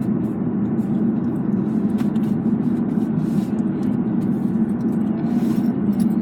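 Steady road and engine noise inside a moving vehicle, a constant low rumble with no sudden events.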